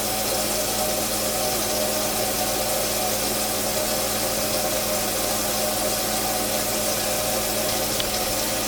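Kitchen tap water running steadily into the sink and down through a newly installed garbage disposal's drain, a constant rush, being checked for leaks. A steady low hum sits beneath it.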